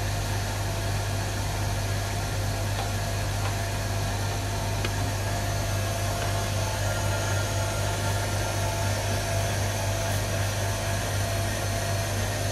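KitchenAid stand mixer motor running steadily, a constant hum as it drives the meat grinder attachment, pushing sausage mince out through the stuffing tube into the casing.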